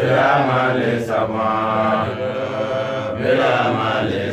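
A man's voice chanting in long, drawn-out melodic phrases, three held lines with short breaks between them, in the sung delivery of an Islamic funeral sermon.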